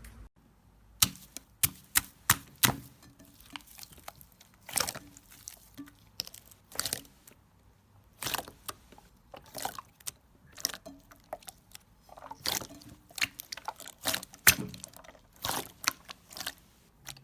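Slime being squeezed and pressed by hand, giving irregular wet pops and crackles, a few of them sharp and loud.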